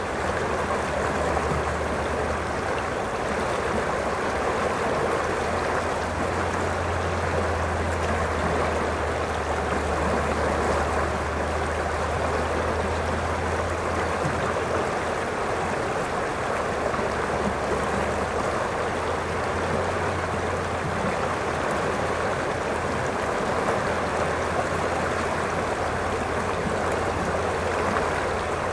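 Shallow river rushing over a rocky riffle: a steady, even rush of water, with a faint low rumble underneath that swells a little in the middle.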